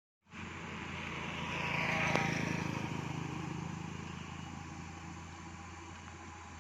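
A bus passing by: its engine and road noise swell to a peak about two seconds in, then fade away over a steady low engine hum. There is a single sharp click at the loudest point.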